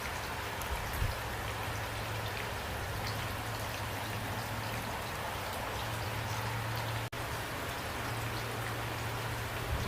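Steady rain falling, with individual drops ticking over a constant hiss and a low steady rumble underneath. The sound briefly cuts out about seven seconds in.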